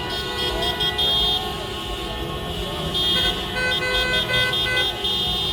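Car horns honking: several held tones, then a fast run of short repeated toots starting a little past halfway, over street traffic noise.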